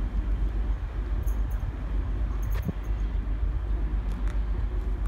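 Diesel locomotive approaching slowly on a curve, hauling coaches: a steady low engine rumble. There is a brief click about halfway through.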